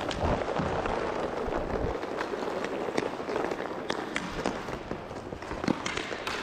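Inline hockey play on a plastic sport-tile rink: a steady rolling rumble of skate wheels, with several sharp, irregular clacks of sticks and puck in the second half.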